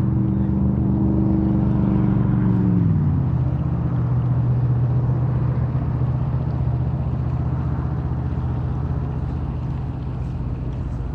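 A motor vehicle's engine running steadily. Its pitch drops about two to three seconds in, like the engine easing back toward idle, and then holds steady.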